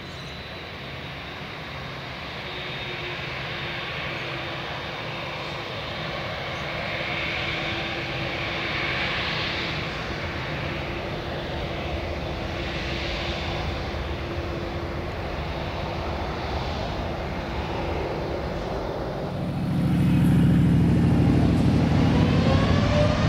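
Boeing 787-8 jet airliner's turbofan engines running at low thrust while it lines up, a steady hum slowly growing louder. About nineteen seconds in the engines spool up for takeoff: a rising whine over a sudden, much louder deep rumble.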